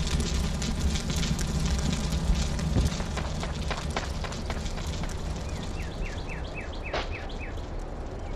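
Campfire crackling over a low rumble. The rumble drops away about three seconds in, leaving lighter crackling. Near the end a bird chirps a quick run of about six short notes.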